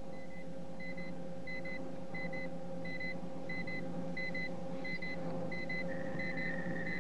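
Electronic soundtrack effect: pairs of short high beeps about every two-thirds of a second over a steady low electronic drone. About six seconds in, a steady high tone joins the beeps.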